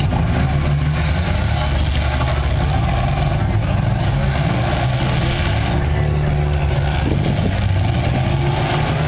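Several demolition derby cars' engines running and revving together, a loud steady rumble.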